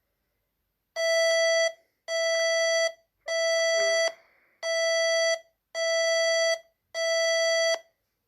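Six identical electronic alarm beeps from an emergency alert tone, each just under a second long and a little over a second apart, on one steady buzzy pitch.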